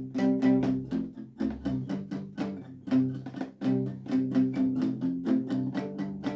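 Guitar strumming chords in a steady rhythm, about four strokes a second, as the instrumental intro to a song.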